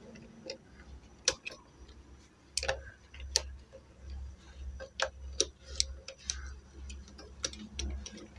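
Irregular sharp metallic clicks and taps as pliers and a coil spring knock against the metal frame and linkage of a sewing machine head while the spring is stretched and hooked into place.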